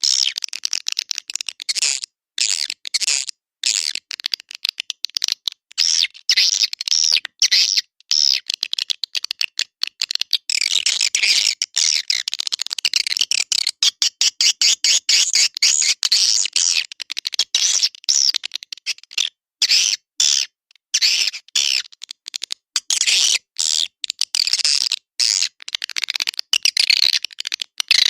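Swiftlet lure call: dense, high-pitched twittering chirps of edible-nest swiftlets, played as a calling sound to draw swiftlets into a nesting house. It is broken by many brief gaps of silence.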